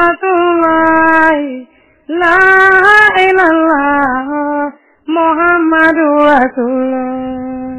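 A single high voice singing an Islamic religious chant in three long phrases separated by short breaks, each phrase holding drawn-out notes that slide down at their ends.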